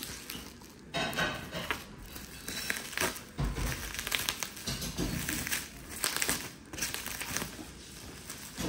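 Packaging being opened by hand: wrapping crinkling and rustling in irregular bursts.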